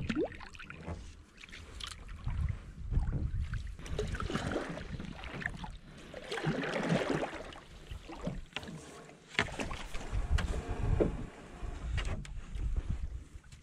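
A canoe being paddled: a wooden paddle stroking through the water in irregular swells of splashing, with occasional sharp knocks and a low rumble.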